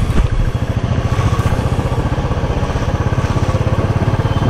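Motorcycle engine running at a steady speed on the move, its exhaust giving an even, rapid low pulse.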